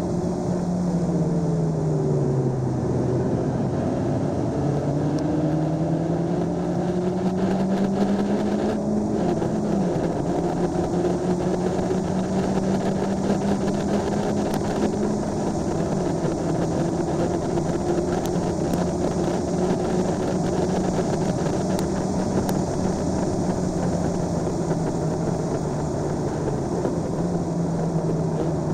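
Honda Civic Si engine heard from inside the cabin while lapping a racetrack, with road and wind noise. Its pitch falls over the first few seconds, climbs under throttle until a sudden drop at an upshift about ten seconds in, then holds high down the straight.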